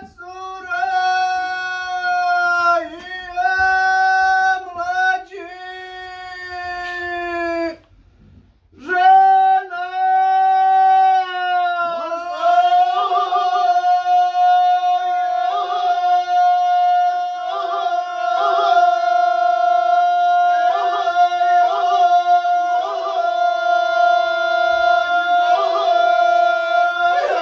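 Ganga: several men singing unaccompanied in the traditional Herzegovinian/Croatian style, holding long sustained notes together. The voices break off briefly about eight seconds in, then come back and hold a steady chord.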